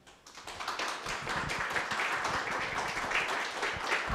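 Audience applauding. The clapping starts about half a second in, builds within a second and then goes on steadily.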